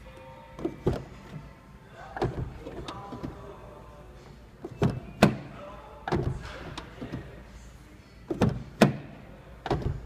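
The front door of an Infiniti QX80 fitted with a Slamstop soft-close door closer, shut again and again: a series of latch clunks, several coming in close pairs as the door catches and is drawn fully shut.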